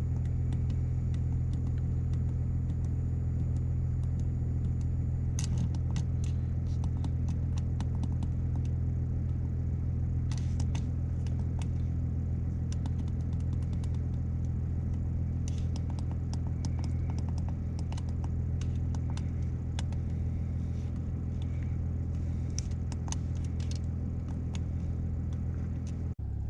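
Steady low hum of the 3.0 Duramax inline-six turbo diesel idling, heard from inside the truck's cab, with scattered light clicks and rattles from handling parts in the cab.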